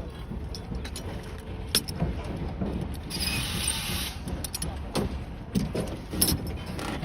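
Scattered sharp clinks and knocks over a low steady rumble, with a brief hiss a little after three seconds in.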